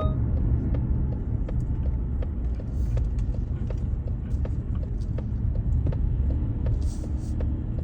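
Car driving along a snowy road: a steady low rumble of engine and road noise, with scattered faint ticks and crackles.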